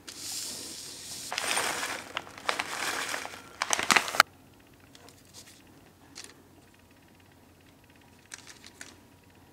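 Crinkly plastic packaging rustling and crackling for about four seconds, ending in a quick run of sharp clicks, then only a few faint soft taps.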